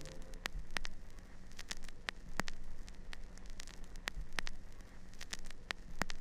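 Crackling surface noise: irregular sharp clicks and pops over a faint hiss and a low steady hum, like an old record or film soundtrack.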